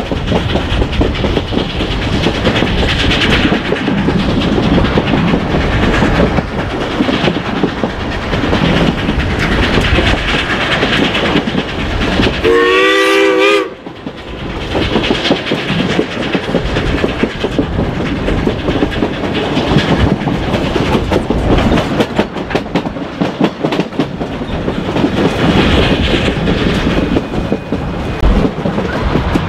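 Narrow-gauge steam train running, heard from aboard a passenger coach: a steady rumble with wheels clattering over the rail joints. About halfway through, the locomotive's steam whistle sounds one short blast of about a second.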